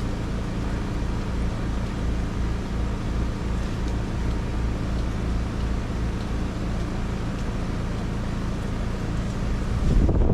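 Carrier Infinity 27VNA0 heat pump outdoor unit running in heat mode, a steady hum of several low tones over a noisy hiss. Near the end a louder low rushing noise comes in.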